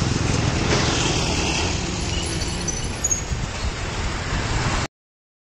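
Road-rail vehicles (a converted truck and a concrete transit mixer on rail wheels) moving along the track, their engines making a steady low rumble that cuts off suddenly near the end.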